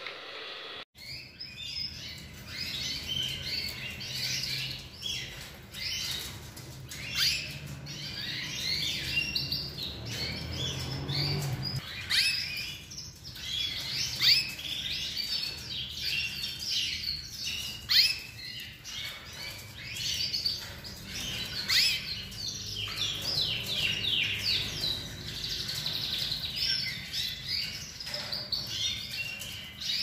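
Domestic canaries singing: a continuous stream of fast rolling trills and warbles, broken by a few brief pauses, over a low steady hum.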